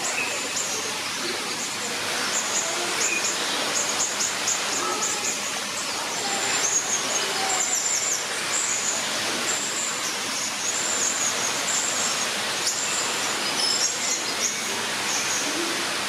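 Many small birds chirping and twittering in short, high calls throughout, over a steady hiss of background noise.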